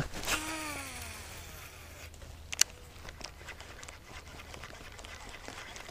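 Light clicks of a baitcasting rod and reel being handled, with one sharp click about two and a half seconds in, over a low steady rumble. A short falling tone sounds just after the start.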